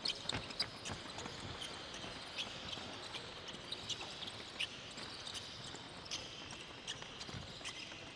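A group of players' sneakers skipping and landing on a wooden sports-hall floor during high-knee A-skips: many quick, irregular footfalls with short shoe squeaks.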